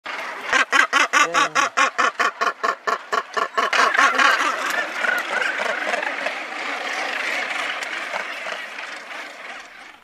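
Northern gannet calling right beside the microphone, one rapid call repeated about five times a second for roughly four seconds. Then a dense, steady din of many gannets calling across the colony, fading near the end.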